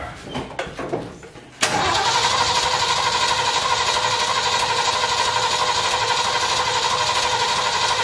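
Ford 351 Windsor V8 being cranked over by its starter motor, starting about a second and a half in, with an even, fast chugging rhythm that never catches and runs up. It is a first start, cranking to draw fuel through the mechanical pump to the dry carburettor, and the engine gets no spark because the coil's high-tension lead to the distributor is disconnected.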